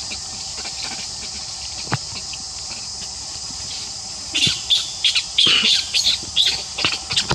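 Outdoor forest ambience with a steady high hiss. From about four seconds in comes a quick run of short, high chirps and squeaks.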